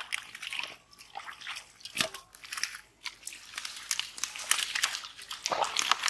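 Hands groping in wet mud and water hyacinth while hand-fishing a drained pond: irregular wet squelches, crackles and clicks.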